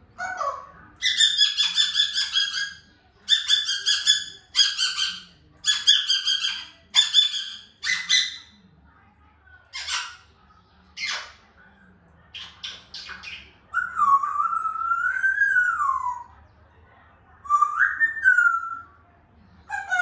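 African grey parrot calling: a string of repeated calls, roughly one a second, for the first several seconds, then a few short sharp clicks, then a long whistle that wavers up and down and a shorter rising whistle.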